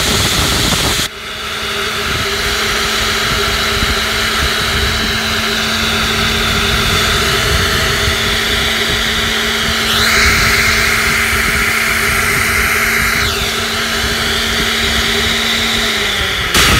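Vintage General Electric Disposall garbage disposer running empty at speed, its turntable spinning in the stainless steel chamber: a loud, steady whir with a steady hum, the hum dropping slightly in pitch near the end.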